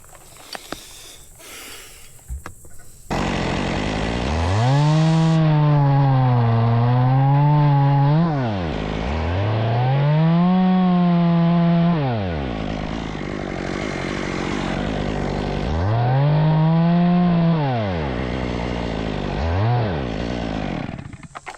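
Chainsaw starting abruptly about three seconds in. Its engine revs up and falls back four times, the last rev brief, and it cuts off just before the end.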